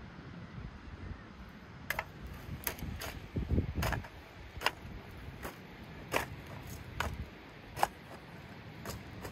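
Metal hoe blade chopping into dry, clumpy soil: about ten sharp strikes, a little faster than one a second, starting about two seconds in, with a duller, heavier thud at about three and a half seconds.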